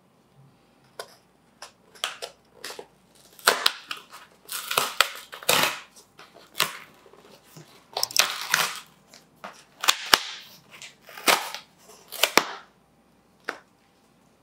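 A corrugated cardboard shipping box being pulled open by hands: an irregular run of sharp crackles, snaps and short tearing rips as the tear strip and flaps give way, busiest through the middle.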